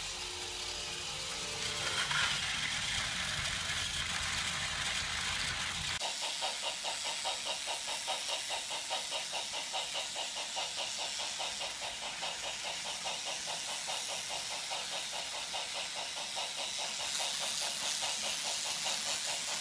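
Battery-powered Trackmaster Hiro toy engine running on plastic track, its small electric motor and gearing making a fast, even rattle. A low hum underneath cuts off about six seconds in.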